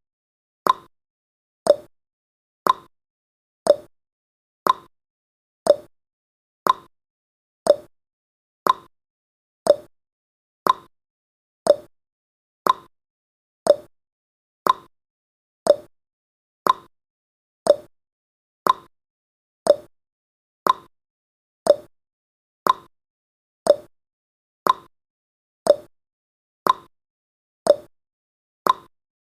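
Countdown timer's clock-tick sound effect: a short, sharp tick once a second, evenly spaced.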